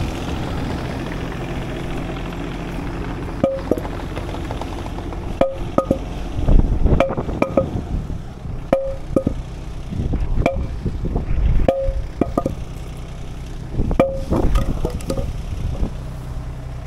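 An engine running steadily, with irregular short ringing clinks and knocks over it from a few seconds in.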